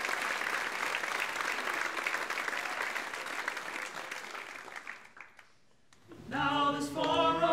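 Audience applause that dies away about five seconds in. After a brief hush, a small group of voices starts singing a cappella in close harmony about six seconds in.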